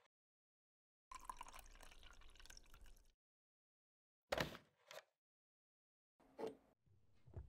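Water poured from an electric kettle into a mug for about two seconds, followed by a sharp knock and a softer one, and a further short knock near the end, each part cut off by dead silence.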